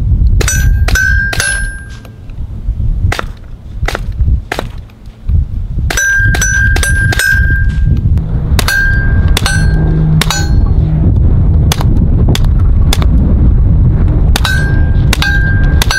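Suppressed .22 LR pistol shots from a Ruger 22/45 Lite with a Dead Air Mask HD suppressor, over twenty in quick strings. Many are followed by the ringing ding of a hit steel target, which is louder than the gun itself.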